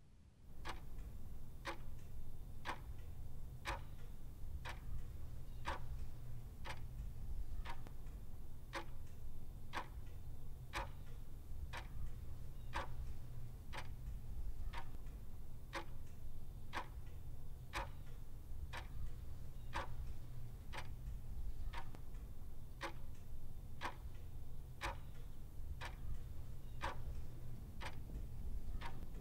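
A clock ticking steadily, about one tick a second, over a steady low hum.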